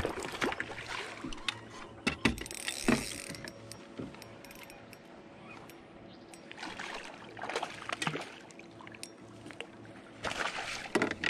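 Spinning reel being cranked against a hooked bass, its gears and ratchet clicking in irregular spells, with knocks and rustles of handling in the boat.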